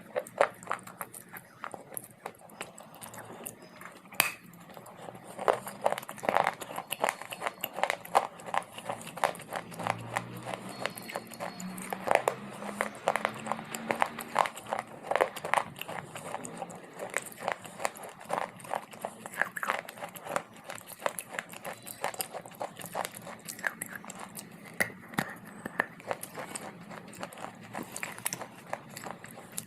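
Close-miked chewing of dry baked clay: a steady run of sharp crunches and crackles, several a second.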